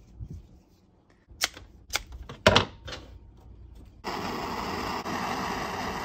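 A few sharp clicks, then a small handheld torch burning with a steady hiss from about four seconds in.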